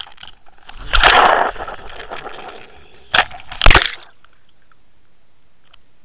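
Waterwolf underwater fishing camera cast out on the line: a loud rush of air about a second in, then two sharp splashes as it hits the water. After that the sound goes quiet and muffled underwater, with faint ticks.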